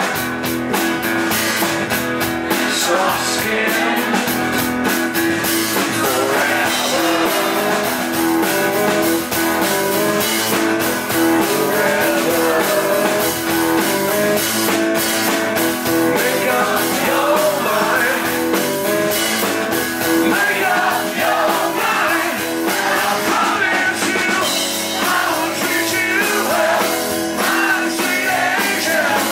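Live acoustic rock song: an acoustic guitar strummed steadily under a man's sung vocal line, which comes and goes between phrases.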